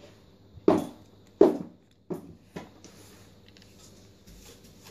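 Crosman SNR357 CO2 revolver being worked: two loud sharp cracks less than a second apart, then two fainter clicks.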